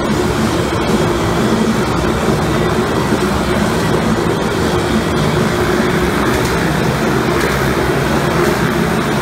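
Motorcycles riding round inside a steel mesh globe of death, their engines running loud and steady at an even pitch.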